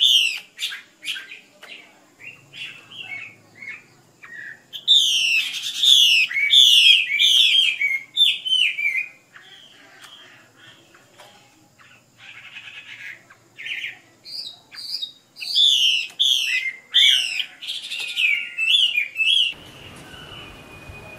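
Female Chinese hwamei (Vietnamese họa mi mái) calling in its cage: runs of rapid, repeated down-slurred notes, several a second, in bursts with a quieter stretch in the middle. The calling stops about a second before the end, leaving a faint steady hiss.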